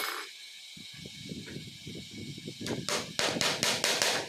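Claw hammer driving a nail into a laminated particleboard panel: a few faint taps and handling knocks, then, about two and a half seconds in, a fast run of about ten sharp strikes, roughly six a second.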